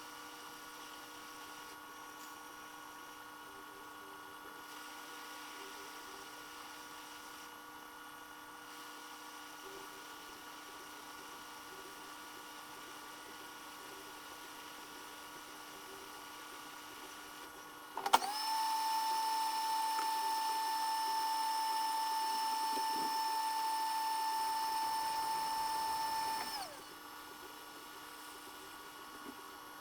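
A faint steady electrical hum, then about 18 s in a click and a small blower starting up with a steady whine, typical of a hot air rework station used to solder a connector on a laptop logic board. The whine holds for about eight seconds, then winds down and stops.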